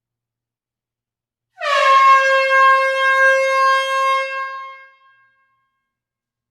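A single long horn blast: a bright, brassy note that dips slightly in pitch at the start, then holds one steady pitch for about three seconds before fading out.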